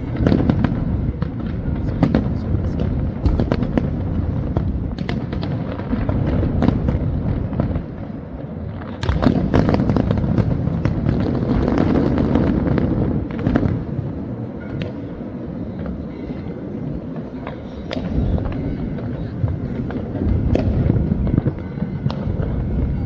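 Fireworks display: a continuous barrage of bangs and booms over a rolling rumble, growing denser and louder about nine seconds in and again near the end.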